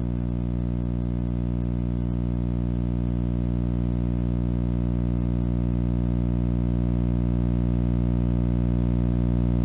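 A steady low hum with many overtones, holding one pitch and growing slightly louder.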